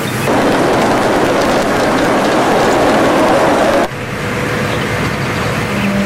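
Soundtrack of a projected film: a loud, steady rushing noise that cuts off abruptly about four seconds in, followed by quieter noise. Held musical notes come in near the end.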